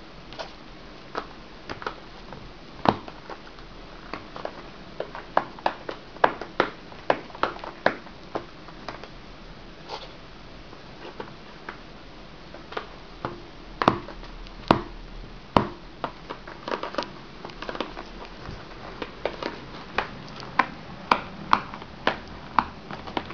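A cat biting and nosing at a corrugated cardboard scratcher box with catnip in it, making irregular sharp clicks and crackles. The clicks come in clusters, a few each second, with a quieter spell in the middle.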